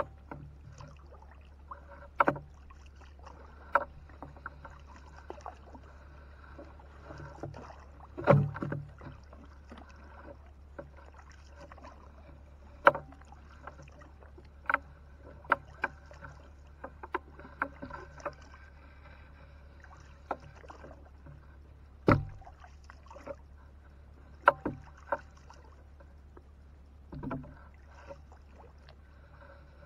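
Scattered knocks and clicks of a gill net and its lead-weighted rope being paid out over the side of a wooden boat, bumping the hull, with a few heavier thuds, over a steady low hum.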